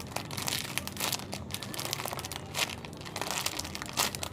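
Crinkling and rustling, as of a plastic wrapper or bag being handled, with many irregular crackles.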